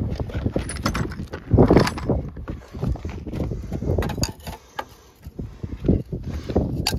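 Irregular plastic-and-metal clacks and knocks of chrome lug nut covers being pushed onto a truck wheel's lug nuts and handled, over a low rumble.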